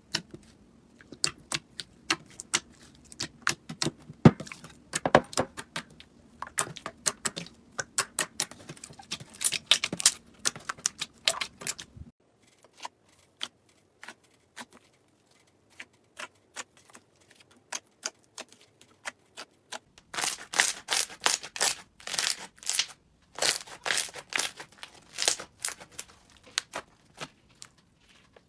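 Slime being squeezed and poked, making a rapid, irregular crackle of small sharp clicks. The clicks thin out to a few quiet ones after about twelve seconds, then come back louder and denser near the end.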